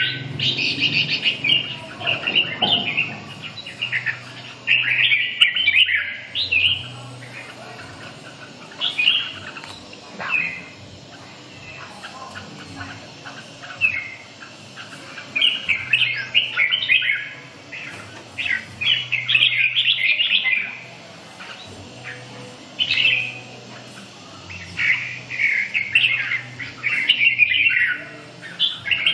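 Red-whiskered bulbul singing in bursts of quick chirping phrases, each a second or two long, with short pauses between them.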